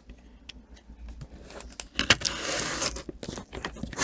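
A mailed package being handled and opened: scattered clicks and rustles of packaging, then a rip of about a second, about two seconds in, as it is torn open.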